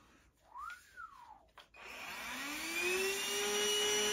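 A short rising-and-falling whistle, then about two seconds in the Grundig VCH 9631 18 V cordless handheld vacuum is switched on. Its motor spins up in a rising whine and settles into a steady run.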